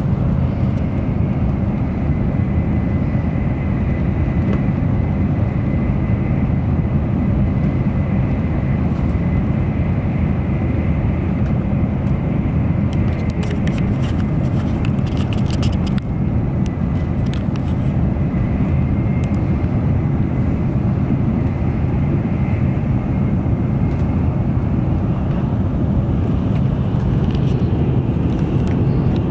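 Interior running noise of an N700 series Shinkansen travelling at speed: a steady low rumble of wheels and rushing air, with a faint thin high tone through much of it.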